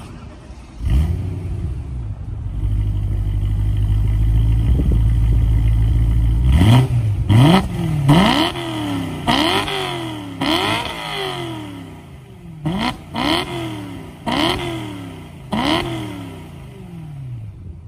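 BMW E92 M3's 4.0-litre V8 fires up about a second in and idles steadily. From about halfway through it is revved about eight times in quick blips, each climbing fast and dropping back to idle.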